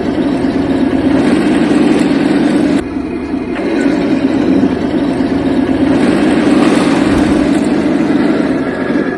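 Tank engine sound effect running steadily, a low mechanical drone with a brief drop in level about three seconds in.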